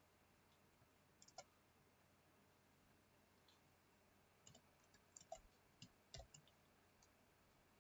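Faint computer keyboard keystrokes over a quiet background: a couple of clicks about a second and a half in, then a quick run of about a dozen keystrokes in the second half as a word is typed.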